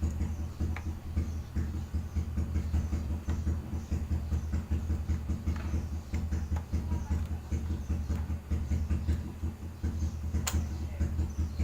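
Small clicks of a laptop-type memory module being handled and pushed into its slot, with one sharp click near the end as it snaps into place. A steady low hum runs underneath throughout.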